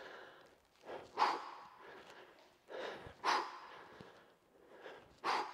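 A man's forceful exercise breathing during repeated high-knee lunges: three times, about two seconds apart, a short inhale followed by a sharp, louder exhale blown out as the knee drives up.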